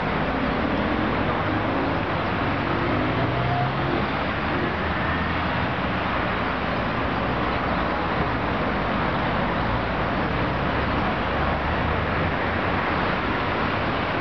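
Steady hum of road traffic, with a vehicle engine's pitch rising briefly in the first few seconds.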